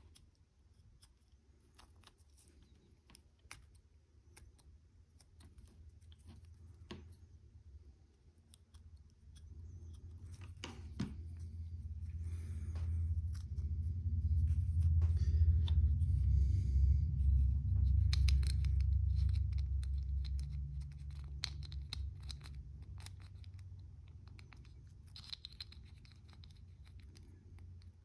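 Hobby knife scraping and trimming a small plastic tank-model part, then the plastic hull pieces handled and fitted together: light scratches and clicks throughout. A low rumble swells up through the middle and fades away again.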